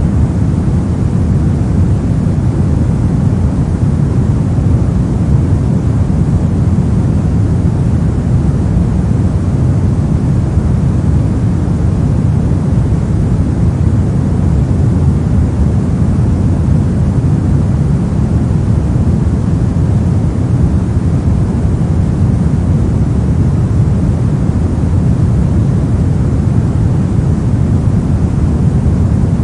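Steady synthetic pink noise: an even, unchanging rush of noise weighted toward the low end.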